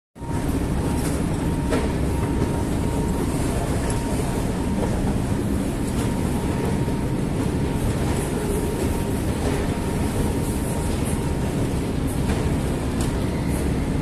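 Escalator running: a steady low mechanical rumble from its drive and moving steps, with a faint steady whine and a few light clicks.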